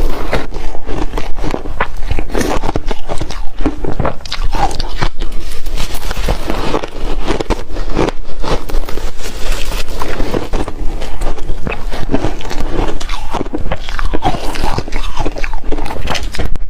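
Ice cubes being bitten and chewed: a loud, continuous run of sharp cracks and crunches.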